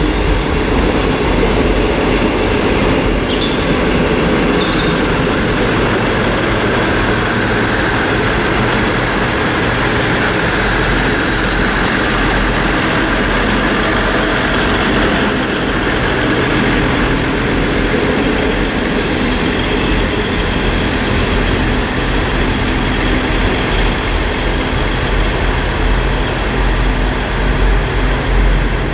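South West Trains Class 159 Sprinter diesel multiple unit passing at low speed, its underfloor diesel engines running steadily under the wheel and rail noise. A few brief high squeals come about three to five seconds in.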